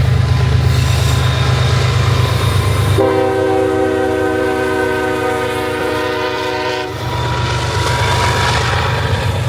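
CSX diesel-electric freight locomotive passing close by, its engine a deep steady rumble, with one long horn blast of about four seconds starting about three seconds in.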